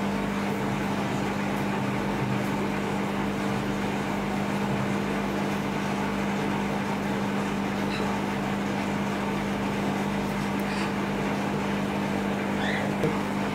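Steady electrical machine hum with a constant hiss behind it, typical of room equipment running. A couple of faint short high chirps come about 8 s in and near the end.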